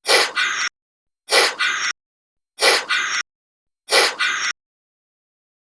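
Chameleon hissing: four short, breathy hisses, a little over a second apart.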